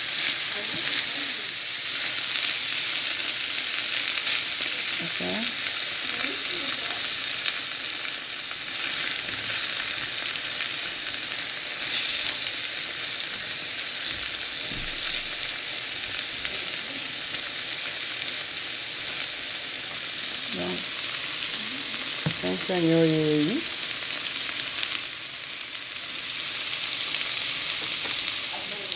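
Small dried fish (nsensa) with shredded vegetables and tomato frying in a pan, a steady sizzle as it is stirred with a wooden spoon. A brief pitched sound comes a little past three-quarters of the way in.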